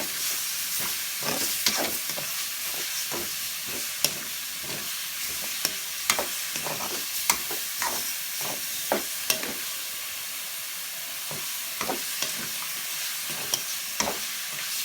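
Pork pieces sizzling in hot oil as they are sautéed with ginger, onion and garlic, a steady hiss broken by irregular scrapes and taps of a utensil stirring against the pan.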